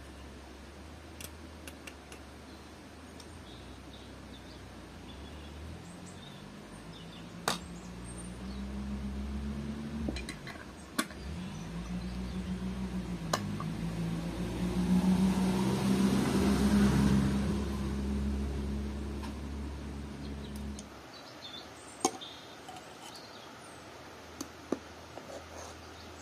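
Metal spoon clinking against glass jars and an aluminium pot as cooked apples in syrup are spooned into canning jars, a few sharp separate clinks. Under it a low wavering drone swells to its loudest partway through, with a rush of hiss, then cuts off suddenly near the end.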